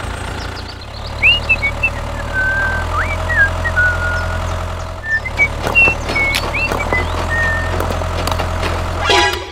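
Steady low engine drone as a small toy tractor drives, with short chirping whistles over it and a few sharp clicks about halfway through and near the end.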